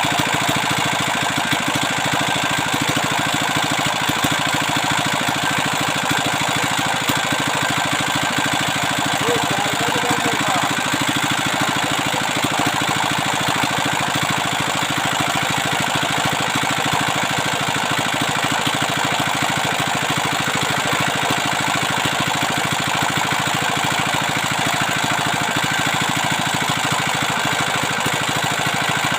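175F single-cylinder 5 hp diesel engine running steadily after its repair, with an even, rapid knocking of its firing strokes.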